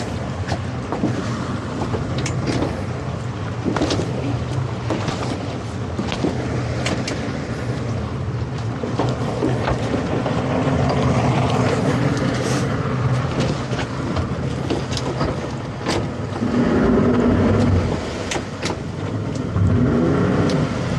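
Towboat's engine running steadily under load, pulling a grounded sailboat free, with wind and water noise and scattered knocks and splashes.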